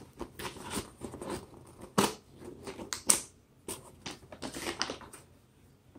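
A shipping package being opened by hand: irregular rustling, crinkling and clicking of the packaging, with two sharp snaps about two and three seconds in.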